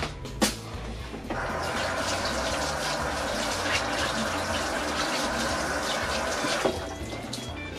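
A sharp knock, then water running from a tap for about five seconds, starting and stopping abruptly.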